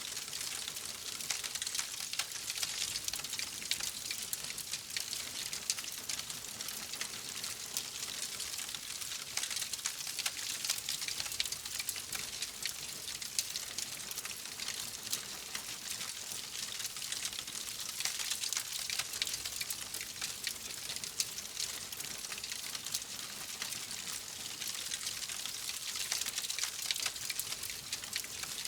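Wood fire crackling steadily: a continuous hiss thick with small, rapid pops.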